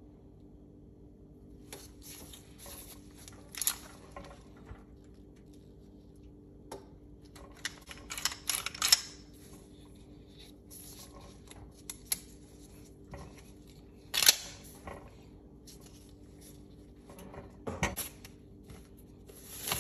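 Pistol disassembly handling noise from a Tanfoglio Stock II. Gloved hands make a series of short metal clicks and clacks as the slide and frame parts are worked, with soft rubbing in between. The loudest clacks come in the middle, over a faint steady hum.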